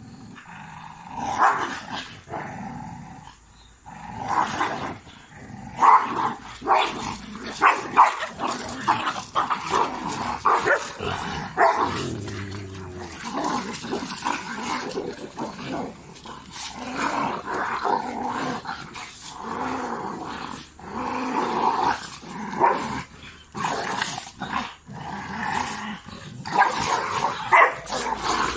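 Two dogs fighting, a pit bull-type and a tan dog, snarling, growling and barking in rapid, irregular bursts throughout.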